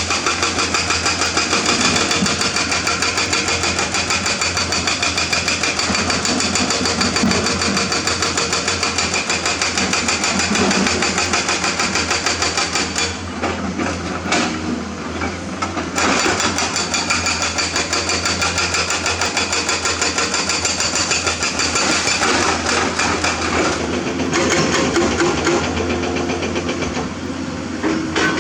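Hydraulic excavator's diesel engine running under load with a fast, even pulse. It eases off briefly about halfway through and again near the end.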